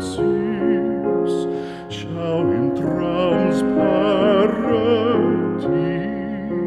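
Outro music: a sung melody with wide vibrato over steady held accompanying notes.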